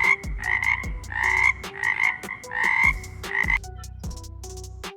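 Frog croaking: a run of about seven short, rasping croaks that stops about three and a half seconds in.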